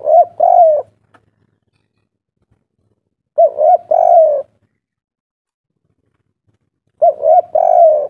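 Spotted dove cooing its three-part 'kuk 3' call, three times about three and a half seconds apart. Each phrase is a short note followed by two longer coos.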